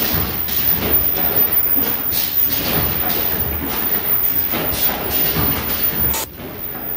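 Automatic headband N95 mask production line running, a steady mechanical clatter with repeated thumps about twice a second. It drops in loudness about six seconds in.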